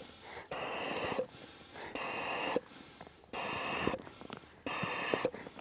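Wheezing, breathy laughter: a run of drawn-out, voiceless breaths, about one every second and a half.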